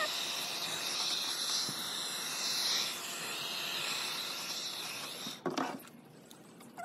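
Handheld electric heat gun blowing hot air over wet epoxy resin with a steady hiss. It stops about five and a half seconds in with a short knock.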